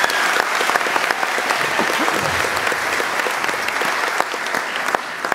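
Audience applauding, dense clapping that dies down near the end.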